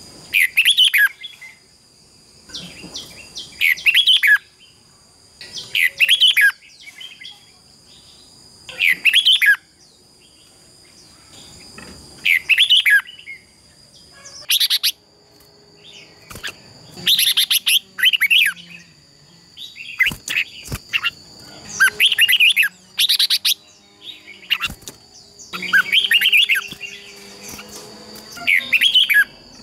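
Red-whiskered bulbul singing loud, short, chattering song phrases about every two to three seconds, the bold competitive song that keepers use to provoke caged birds into singing. A steady, thin, high-pitched tone runs underneath.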